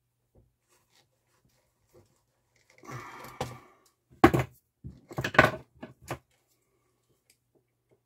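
Hand tools and metal turntable motor parts being handled: a scraping rustle about three seconds in, then a handful of sharp knocks and clacks over the next two or three seconds.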